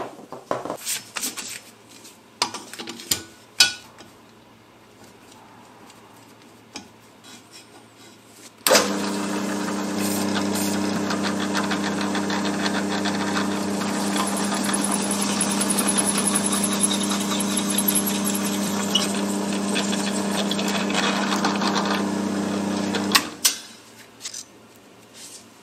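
Light clicks and taps of small metal parts being handled, then an electric drill runs steadily for about fourteen seconds, drilling out the bore of a flexible shaft coupling to 7 mm, and stops abruptly.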